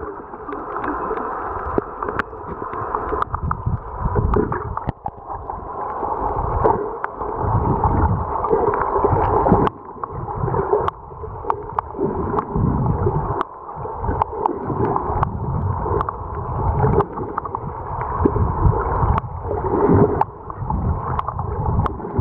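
Muffled underwater sound from a camera held below the surface while snorkeling over a coral reef: surging, sloshing water noise with scattered short sharp clicks.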